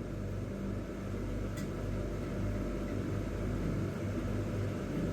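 Steady low mechanical hum of a running machine, with one faint click about one and a half seconds in.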